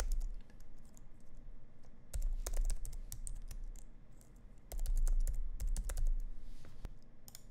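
Typing on a computer keyboard: quick runs of keystrokes in several bursts with short pauses between.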